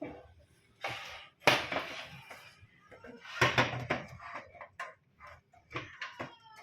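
A series of sharp knocks and clatters of hard objects being handled, with the loudest cluster about halfway through.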